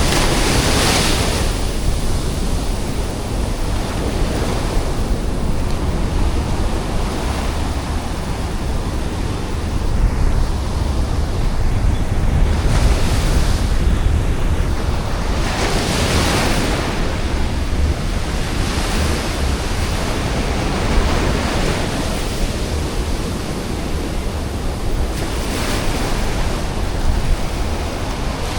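Ocean surf: a continuous wash of breaking waves, with louder crashes swelling up every several seconds, the biggest about halfway through.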